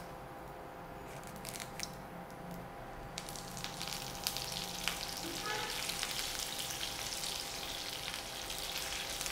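Groundnut oil sizzling and crackling in a pan with cinnamon, cloves, cardamom and poppy seeds frying in it: the tempering stage of the spice paste. The crackle grows busier and louder about three seconds in.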